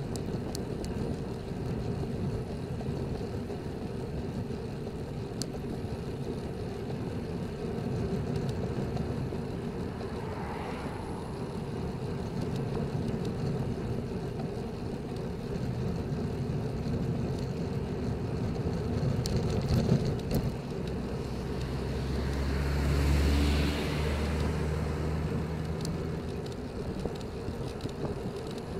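Steady wind buffeting the microphone and tyre hum from a road bicycle riding at about 24 km/h. About three-quarters of the way through, a motor vehicle passes, its engine and tyre noise swelling and then fading.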